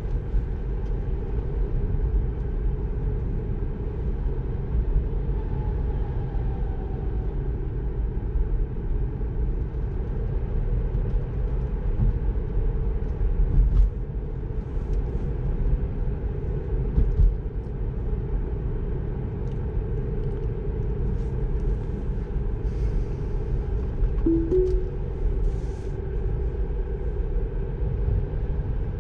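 Steady low road and tyre rumble inside the cabin of a moving Tesla Model 3, with a couple of brief louder bumps partway through.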